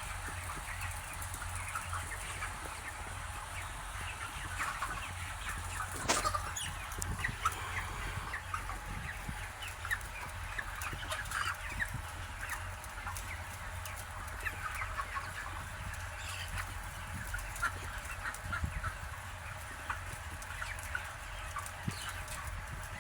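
A flock of broiler chickens calling together in their house, a dense continuous chatter of short clucks and cheeps, over a steady low hum. A single sharp knock sounds about six seconds in.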